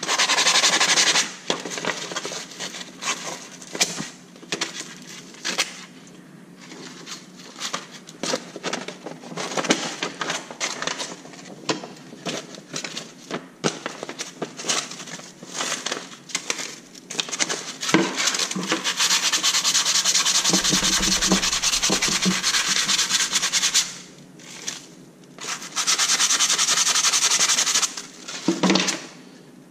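Hand work on parts at a workbench: scattered clicks, taps and light knocks, with stretches of steady rubbing noise, brief at the start and longer twice in the second half.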